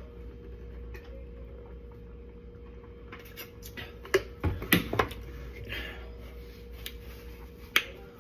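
Drinking from a large plastic water jug, then a cluster of sharp plastic clicks and knocks about four to five seconds in as the jug's flip-top lid is closed and the jug handled, and one more sharp click near the end. A faint steady hum runs underneath.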